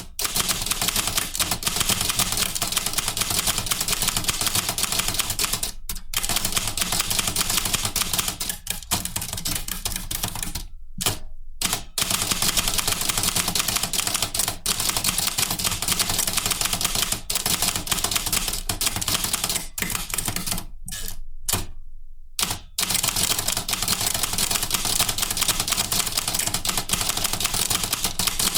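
Typewriter keys striking in fast, continuous typing, broken by a few short pauses.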